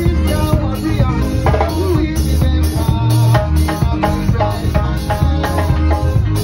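Live revival band playing: a drum kit keeping a steady driving beat over bass guitar, with a bright rhythmic top of cymbals.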